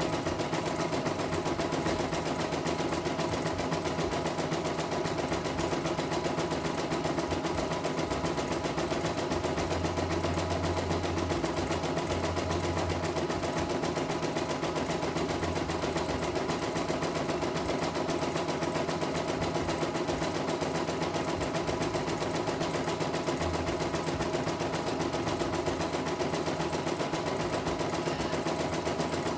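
CNY E900 portable embroidery machine running a design, its needle stitching in a fast, steady, unbroken rhythm as the embroidery unit moves the hoop.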